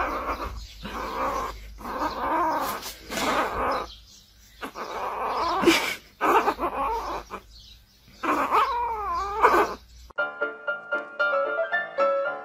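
Young kitten crying in a string of mews, about nine calls with short gaps, the last one long and wavering. Piano music takes over about ten seconds in.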